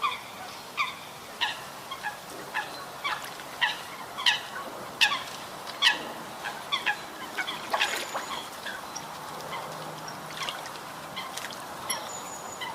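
Eurasian coots calling: a long run of short, clipped calls, roughly one or two a second, some overlapping, over a faint steady background hiss.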